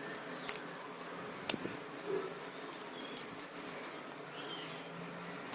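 Scattered light clicks and ticks of small parts being handled as wires are worked off the pins of a compact fluorescent lamp's tube. A bird chirps briefly in the background about four and a half seconds in.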